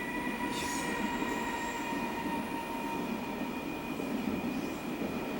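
Steady mechanical rumble with a few steady high whining tones throughout, and a brief soft rustle about half a second in.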